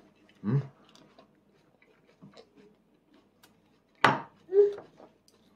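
Quiet mealtime sounds of a toddler eating with training chopsticks: faint clicks and chewing, a sharp click about four seconds in, and a couple of short hummed vocal sounds.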